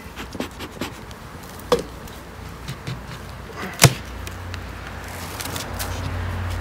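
A metal hive tool prying at a wooden beehive cover, giving two sharp cracks, the louder one about four seconds in, as the cover breaks loose. Right after it, the low buzz of honeybees rises and grows louder near the end as the cover is lifted off the colony.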